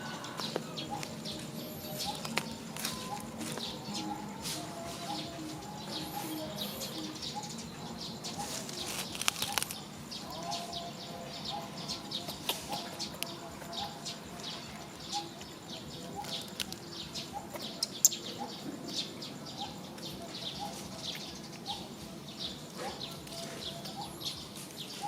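Outdoor ambience of birds chirping, with many short clicks and light rustling throughout.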